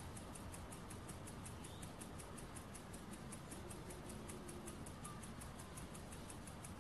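Tiny brass single-acting beam steam engine running steadily, its strokes giving a faint, even ticking of about five a second. It is running at the limit of the small heat of a mosquito-repellent candle flame.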